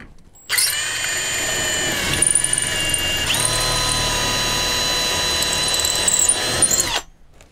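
Milwaukee cordless drill running steadily as it bores a hole through a cabinet panel, a motor whine that steps up in pitch about three seconds in. It starts about half a second in and stops sharply near the end.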